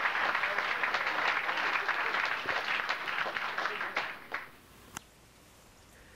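Applause, a dense patter of many claps, fading out about four seconds in; likely an added applause sound effect.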